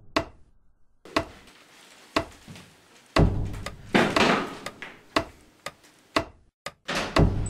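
Slow, regular ticks, about one a second, some with a deeper thud and a short ring after.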